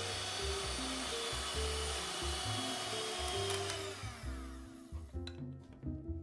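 Electric hand mixer running with its beaters whipping a white foam, a steady high whirr that winds down and stops about four seconds in. Background music plays throughout.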